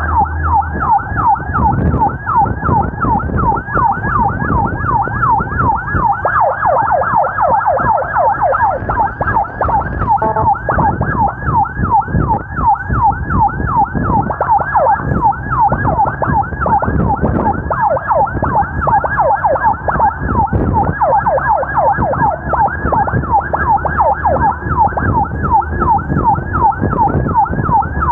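Ambulance siren on fast yelp, a quick rising-and-falling wail repeating several times a second without break, over a low rumble.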